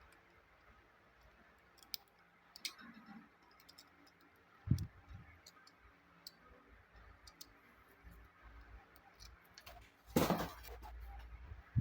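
Small handling noises from a toy car and its packaging: scattered light clicks and taps, a dull knock about five seconds in, and a short, louder burst of rustling near the end.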